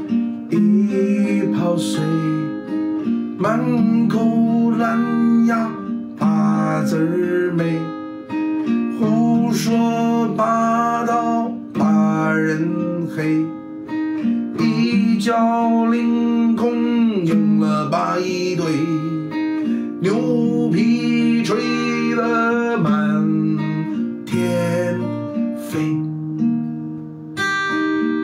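Acoustic guitar strummed in steady chords, accompanying a man singing.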